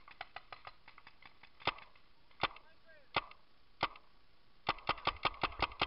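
Paintball markers firing: faint scattered pops, then a few louder single shots under a second apart, then a fast, louder string of shots at about five a second near the end.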